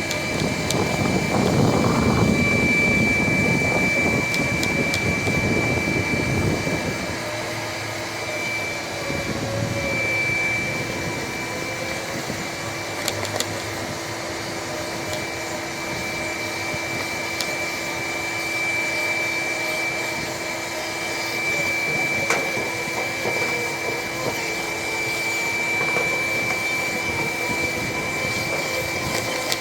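A vacuum-type motor running steadily with a constant high whine and a lower hum. For about the first seven seconds a rough rushing rumble of moving air sits over it, then it settles.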